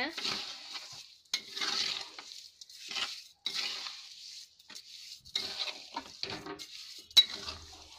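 Metal spoon scraping through grated carrots and sugar in a metal kadhai, stirring in repeated strokes roughly once a second as the sugar is mixed into the milk-cooked carrots. A sharp clink of the spoon against the pan comes about seven seconds in.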